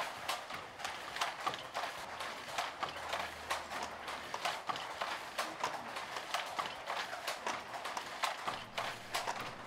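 Wooden handloom clacking as it is worked: a stream of quick, uneven clicks and knocks, a few each second.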